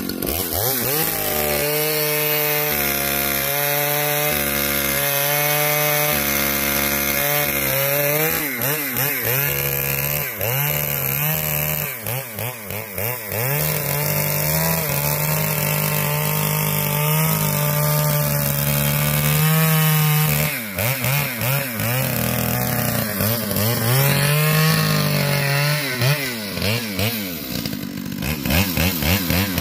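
Two-stroke chainsaw running at high speed and cutting wood. Its engine note holds steady for long stretches, then wavers and drops a few times, most unsteadily near the end.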